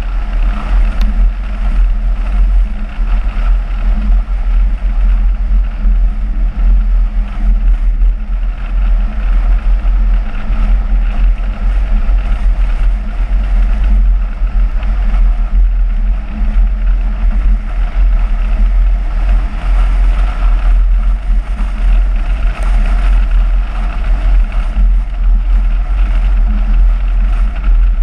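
Smart car driving steadily along a winding road. Heavy wind rumble on the microphone sits over the engine and tyre noise.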